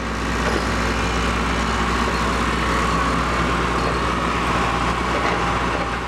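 Diesel engine of a Liebherr 902 wheeled excavator running steadily while it digs.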